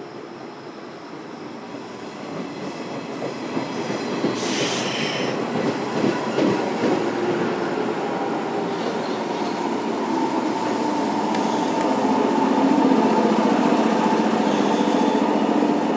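JR Kyushu 103 Series 1500-subseries electric train moving on the rails and getting steadily louder. A brief hiss comes about four seconds in, a few rail-joint clacks around six seconds, and a steady hum sets in about ten seconds in.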